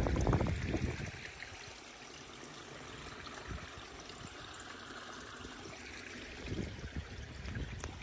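Water trickling steadily, a small stream running hidden under the trailside grass and gorse. Scattered footsteps on the dirt path during the first second and again near the end.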